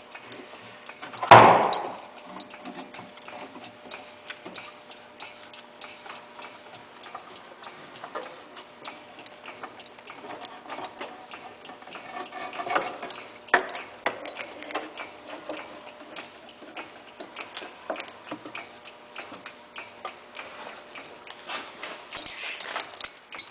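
Hydraulic lift slowly raising a skid steer's hydraulic drive motors, giving a run of small ticks and clicks of metal over a faint steady hum. A single loud, brief clatter comes about a second and a half in.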